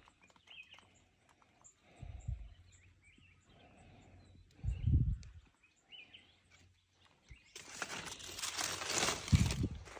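Quiet outdoor background with faint bird chirps, two dull low thumps a few seconds apart, and rustling and crunching over the last couple of seconds.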